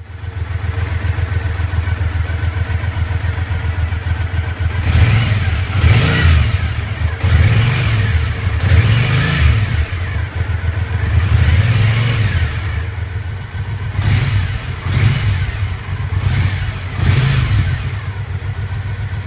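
Triumph America LT's 865 cc parallel-twin engine idling, then revved in a series of short throttle blips, each falling back toward idle, and settling to a steady idle near the end.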